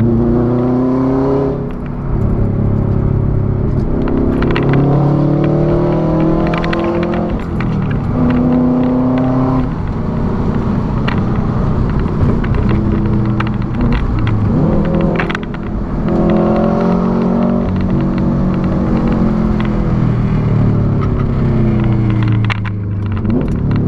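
2006 Subaru WRX's turbocharged flat-four running with the muffler removed, pulling through the gears: the loud exhaust note climbs in pitch under acceleration and drops back at each gear change, several times over. A few sharp pops cut in along the way.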